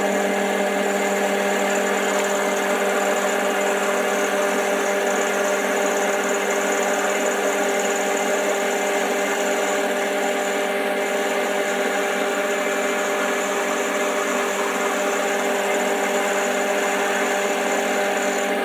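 Boxford lathe running steadily with a cutter turning in its chuck, milling a shallow groove about 10 thou deep along the edge of a workpiece fed across on the cross slide. The motor and gearing give a steady hum with a whine.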